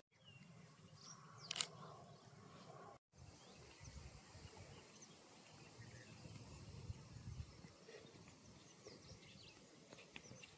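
Near silence: faint outdoor ambience with a low rumble, a short click about a second and a half in, and a few faint high chirps.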